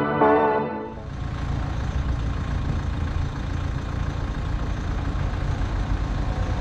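Background music cuts off abruptly about a second in, giving way to steady city-street traffic noise, with vehicle engines running.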